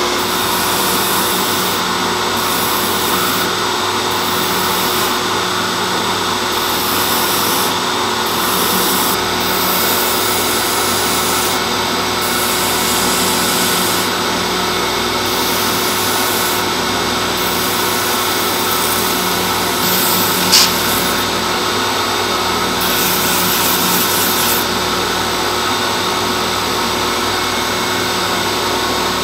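Belt grinder running steadily with a constant motor hum while its abrasive belt sands an axe's leather stacked handle; the gritty hiss comes and goes as the work is pressed onto the belt and lifted off. A single sharp click about two-thirds of the way through.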